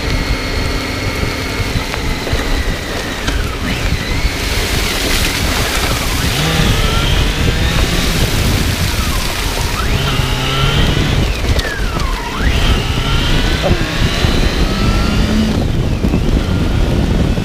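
Motorcycle engine running under way, its pitch falling and climbing again several times, over a steady rush of wind and wet-road spray.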